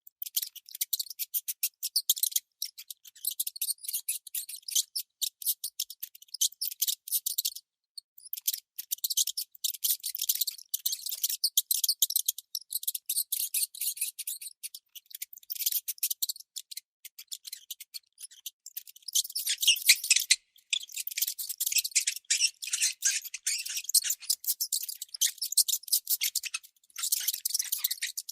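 Baby mice squeaking: rapid runs of short, high-pitched chirps, broken by a few brief pauses.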